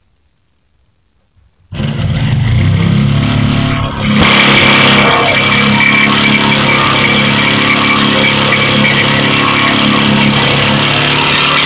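Quiet at first; then, nearly two seconds in, a jigsaw with a fine-toothed bimetal blade starts up suddenly and cuts through 6 mm steel plate. It is loud and steady, the motor and the reciprocating blade biting into the metal. It falters briefly about four seconds in, then settles again slightly louder.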